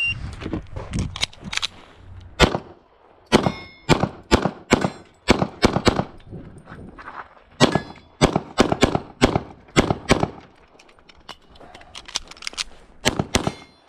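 Shot timer's start beep, then a pistol fired in rapid strings of shots, many in quick pairs, with short pauses between target groups during an IPSC practical shooting stage.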